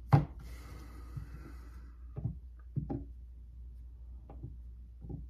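A deck of tarot cards being handled: a sharp tap just after the start, a brief rustle of cards, then a few soft taps spread over the following seconds.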